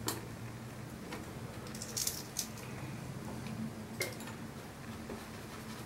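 Watercolour brush clinking against a glass water jar and dabbing wet paint on a palette: a few light taps and clicks, one with a short glassy ring about four seconds in, over a steady low hum.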